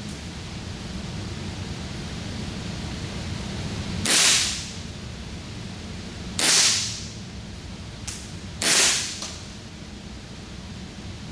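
Sig Sauer SP2022 replica CO2 airsoft pistol, a non-blowback gas gun, firing three shots about two seconds apart. Each shot is a sharp pop with a short hiss trailing after it, over a steady background hiss, and a faint click comes just before the third shot.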